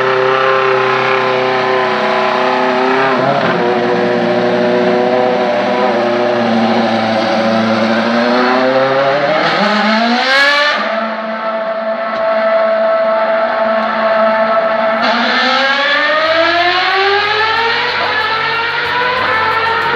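Formula 1 car engine running at high revs, its pitch climbing steeply about halfway through, holding steady, then climbing again in a long rise toward the end.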